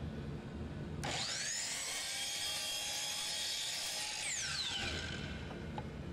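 Miter saw switched on about a second in, its motor whine rising as the blade spins up. It runs steadily for about three seconds while cutting a small wooden block, then is released and winds down with a falling whine, over a steady low hum.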